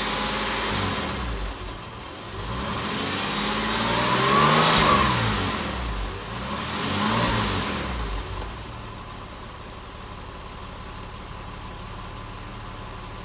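Porsche 996 Carrera 4S flat-six engine revved through its original, non-sports Porsche rear silencers: one long rise and fall in pitch peaking a few seconds in, a shorter blip after it, then settling to a steady idle.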